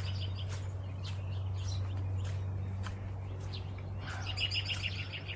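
Songbirds singing: a rapid run of high chirping notes at the start and again near the end, with scattered single chirps between, over a steady low hum.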